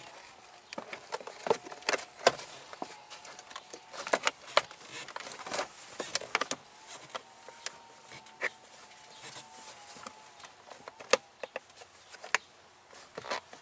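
Irregular plastic clicks, taps and knocks as an SUV's interior A-pillar trim panel is handled and pried at to pop its clips loose, a few of them much sharper than the rest.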